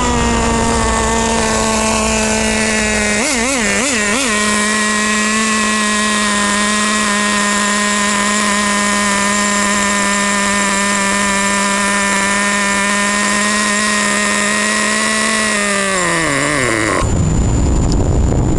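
Nitro RC truck's small two-stroke glow engine idling steadily at a high pitch, blipped three times in quick succession about three seconds in. Near the end its pitch sinks as it slows, and it stops about seventeen seconds in.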